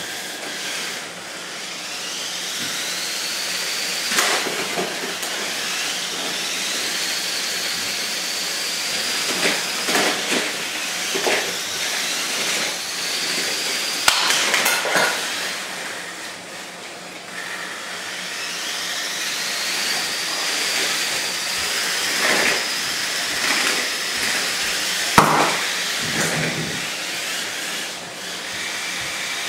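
Small electric motors of Lego combat robots whining, several times rising in pitch as a spinner weapon spins up and then holding high. A few sharp plastic clacks as the robots collide, the loudest about five seconds from the end.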